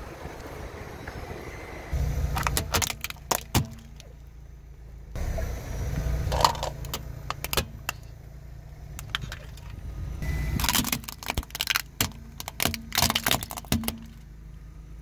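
Car tyre rolling slowly over plastic toys on asphalt: a low rumble in three stretches, each full of sharp cracks and snaps as the toys break under the wheel, with one loud pop in the middle stretch.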